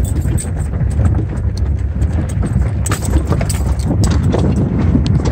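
A vehicle crawling slowly down a rocky off-road trail, heard from inside the cabin. There is a steady low rumble, with frequent irregular knocks and clatters as the tyres roll over rocks and the body jolts.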